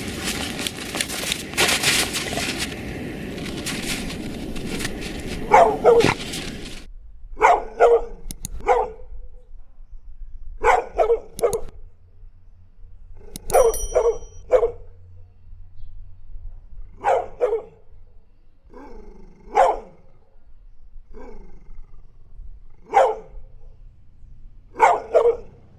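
Dog barking, single barks and quick runs of two or three, spaced a few seconds apart. For the first several seconds a noisy rushing with clicks plays under the first bark and then stops abruptly.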